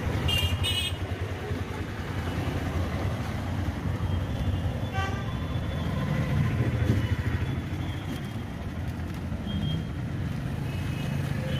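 Street traffic of motorcycles and auto-rickshaws running steadily, with short vehicle horn toots near the start, about halfway through and near the end.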